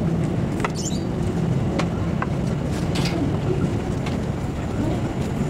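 KRL Commuter Line electric train, an ex-JR 205 series unit, approaching slowly on a curve: a steady low rumble with a few short clicks and squeaks scattered through it.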